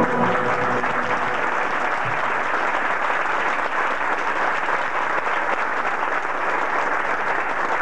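Concert audience applauding steadily at the end of a song.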